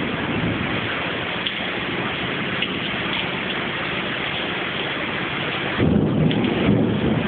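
Heavy rain pouring down steadily in a flash-flood storm, with a louder low rumble joining about six seconds in.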